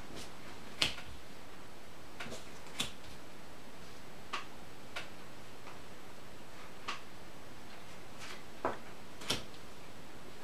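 Scattered light clicks and taps of playing cards being handled and set down on a plastic-covered table, about seven in ten seconds, over a steady hiss.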